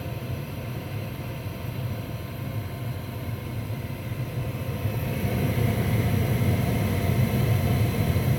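Newly installed Lennox gas furnace running on a heat test: a steady machine rumble and whir from the open cabinet with a faint steady hum, growing louder about five seconds in.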